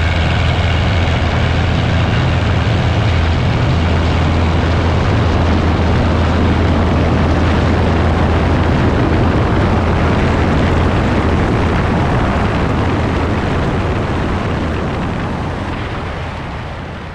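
Ercoupe light aircraft's piston engine and propeller running steadily at high power on takeoff, with a strong low drone; the sound fades out over the last few seconds.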